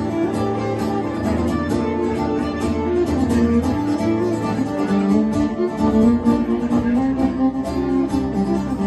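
Fiddle and acoustic guitar playing a tune together, the guitar keeping a steady strummed rhythm under the fiddle.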